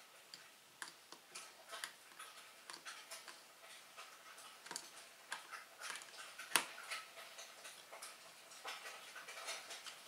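Faint, irregular small clicks and ticks of a small screw and nut being worked by hand to fasten a rod end cap onto a 3D printer's metal frame plate, with one sharper click partway through.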